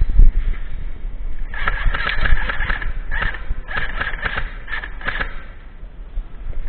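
Raised, shouting voices in a run of broken calls from about a second and a half in to about five seconds, over low thumps.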